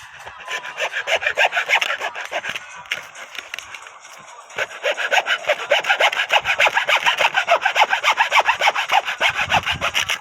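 Sandpaper rubbed briskly back and forth along the wooden stave of a berimbau, sanding it smooth for finishing, in rapid, even strokes. The sanding pauses briefly about four seconds in, then resumes at a steady rhythm of several strokes a second.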